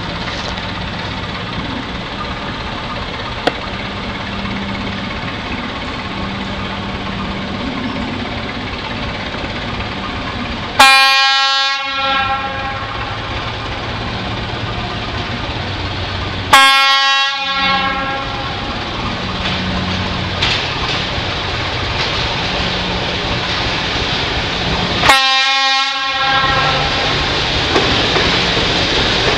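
Czech class 749 diesel locomotive sounding its horn three times, each blast about a second long and well spaced, over the steady running of its diesel engine as it approaches.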